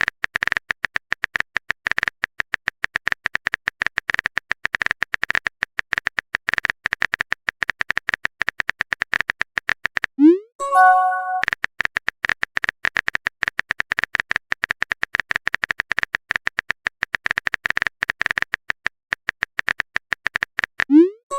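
Rapid phone-keyboard typing clicks of a texting sound effect. About ten seconds in, a short rising swoosh and a brief chime-like message alert break in, then the typing resumes, and another swoosh comes near the end.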